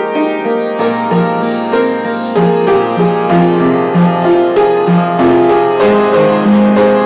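Solo upright piano being played: a steady run of notes over a moving lower part, with a deeper bass note coming in about a second in.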